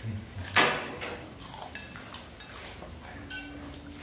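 Spoons clinking and scraping against plates and bowls during a meal: one sharp clink about half a second in, then a few lighter, ringing clinks.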